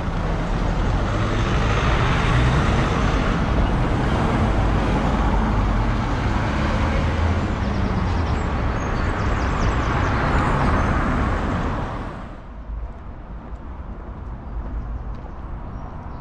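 Street traffic: a motor vehicle's engine running close by over road noise, then the sound drops suddenly about twelve seconds in to quieter street background.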